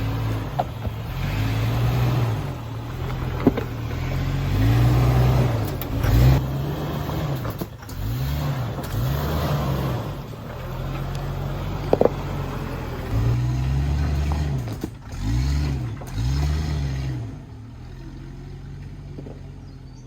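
Jeep engine revving up and falling back again and again as it crawls up a rocky climb, with a few sharp knocks along the way. It settles to a lower, quieter running near the end.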